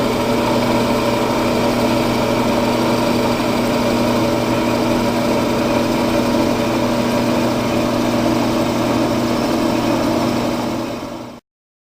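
Ammco brake lathe running with a steady motor hum. Near the end it fades and cuts off.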